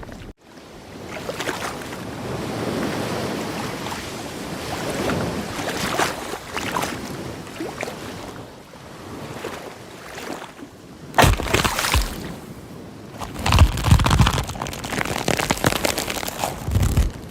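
Waves washing with wind buffeting the microphone: a steady rushing noise, with several louder surges in the second half.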